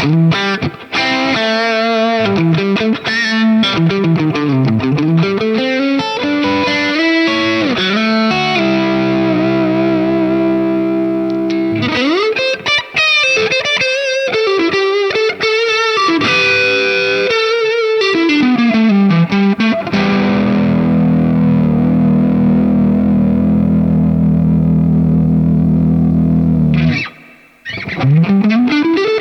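MUSI Virgo Fusion T-style electric guitar played through distortion: lead lines with sweeping pitch glides down and up, then a long held chord that cuts out briefly near the end before the playing resumes with a rising slide.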